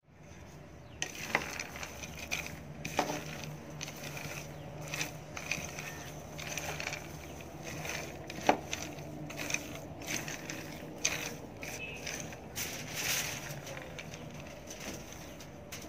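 Raw peanuts dry-roasting in a pan without oil, stirred with a wooden spatula: the nuts rattle and scrape against the pan and each other in irregular clattering, with a sharper click about eight and a half seconds in.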